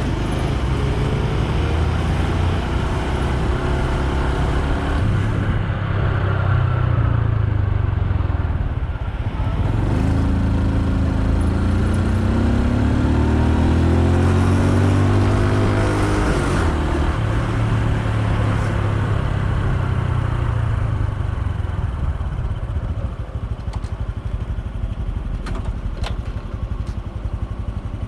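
Honda Super Cub C125's 125 cc air-cooled single-cylinder engine running while the bike is ridden. Its pitch rises as it accelerates from about ten seconds in, drops at about sixteen seconds, and it runs quieter over the last few seconds, with a few light clicks near the end.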